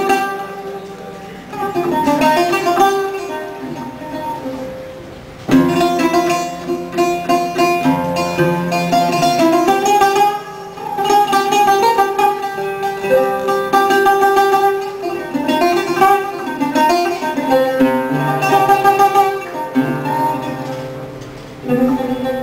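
Music played on a plucked string instrument, guitar-like, in phrases of picked notes with a sharp new phrase about five and a half seconds in, fading away near the end.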